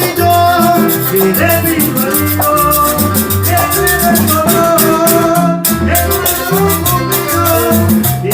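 Salsa band playing an instrumental passage: a moving bass line and melodic lines over a steady, quick percussion beat.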